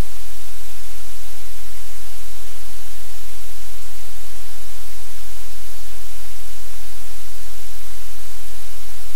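Steady, loud hiss like static, with a low hum underneath, unchanging throughout.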